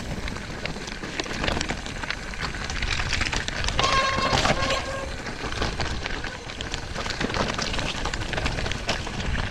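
Electric mountain bike rolling fast down a loose, rocky trail: tyres crunching over stones and the bike rattling, with constant clicks and knocks, and wind noise on the chest-mounted action camera's microphone. A brief squeal sounds about four seconds in.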